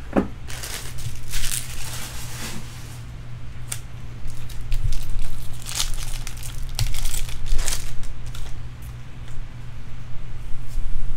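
A foil trading-card pack wrapper being torn open and crinkled by hand, in several short crackling bursts.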